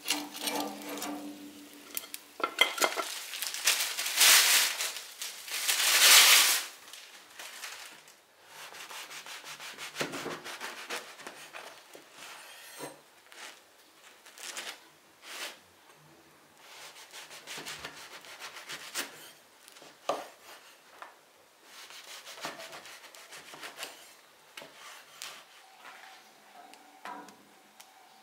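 A knife sawing through a crusty baguette on a wooden cutting board: repeated rasping scrapes. The loudest scraping comes in the first several seconds, then shorter strokes follow.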